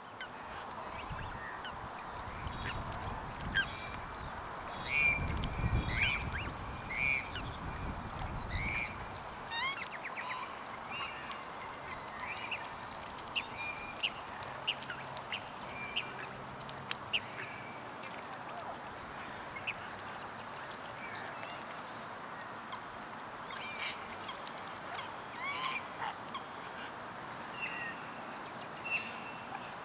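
Black swans calling: a string of short, high calls, some sliding up or down in pitch, repeated at irregular intervals throughout. A low rumble lies under the first nine seconds or so.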